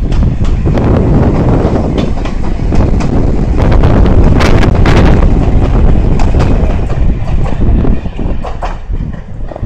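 Chichibu Railway 5000 series electric train running past, its wheels clattering over the rail joints; the sound eases off near the end as it moves away.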